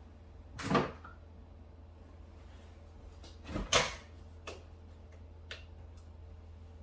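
Two clunks about three seconds apart, like a drawer or door of a fitting being moved, with a few lighter taps after, over a steady low hum.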